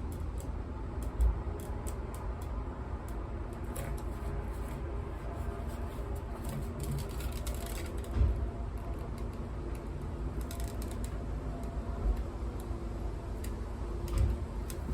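Small scattered clicks and a few soft low thumps, about four in all, of small objects being handled, over a steady low hum.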